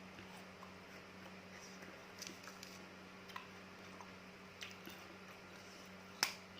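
Close-miked mouth sounds of chewing rujak, fresh cut fruit in palm-sugar chilli sauce: soft wet squishing with scattered small clicks, and one sharper click about six seconds in.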